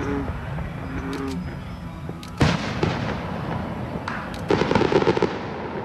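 Fireworks going off: a single sharp bang about two and a half seconds in, then a burst of rapid crackling a couple of seconds later.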